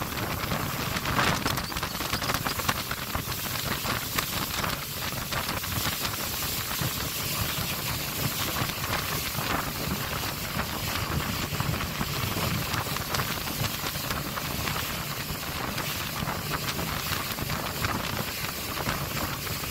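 Steady rush of wind on the microphone and water rushing past the hull of an open river boat under way, with the low drone of its outboard motor underneath.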